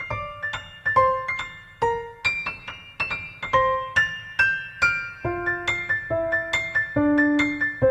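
Background piano music: a gentle melody of single struck notes, each ringing out and fading.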